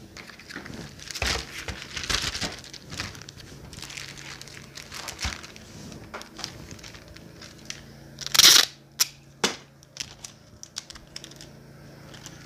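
Plastic packaging crinkling and rustling as items are handled, in short irregular bursts, with one louder crackling rustle about eight and a half seconds in.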